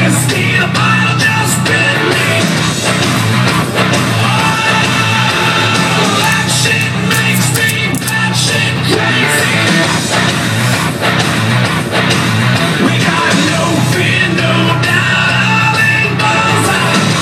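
Loud rock song with distorted guitar and singing, playing without a break.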